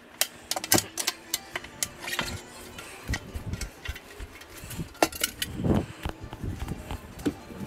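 Irregular clicks and knocks of handling and footsteps on concrete as an outboard motor's top cowl is lifted off, carried and set down, over faint background music.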